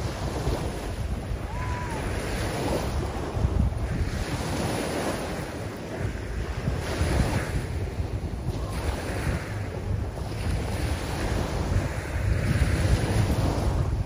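Small waves breaking and washing up a shelly beach, the surf swelling and ebbing every two to three seconds, with wind buffeting the microphone as a constant low rumble.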